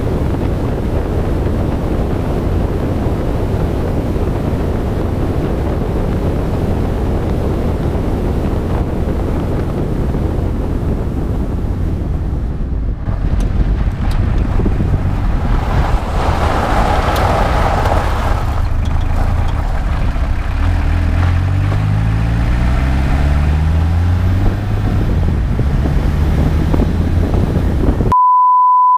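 Wind buffeting the microphone over road noise and the Peugeot 306 turbodiesel engine as the car drives along. In the second half the engine's note climbs in pitch as the car accelerates, and just before the end everything cuts out under a short steady electronic beep.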